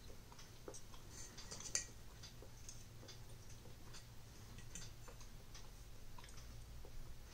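Metal fork and knife clicking and scraping on a ceramic plate while cutting a pancake, a scatter of small irregular clicks over a faint low hum.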